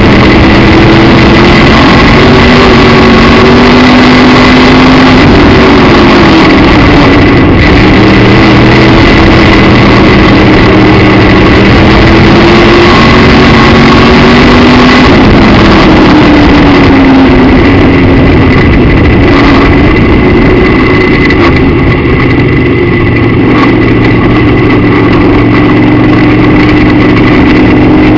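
Midwest Modified dirt-track race car's engine at racing speed, heard from inside the car, very loud and constant. Its pitch falls and climbs back twice, as it lets off and gets back on the throttle, then holds steady near the end, with a thin steady high whine over it.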